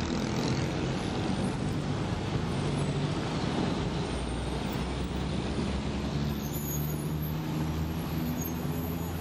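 Street traffic with a city bus's diesel engine running close by, a steady low engine hum over the general road noise.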